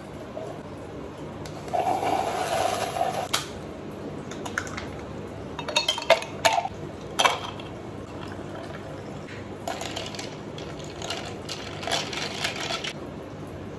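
Liquid pouring into a cup for about a second and a half, followed by scattered clinks and knocks of dishes and cutlery being handled.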